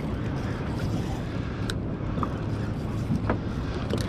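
Steady low hum of a boat motor running over wind and water noise, with a few faint clicks.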